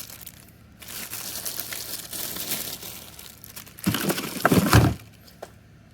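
Plastic bags around power tools crinkling and rustling as they are handled, with a louder burst of crinkling about four seconds in.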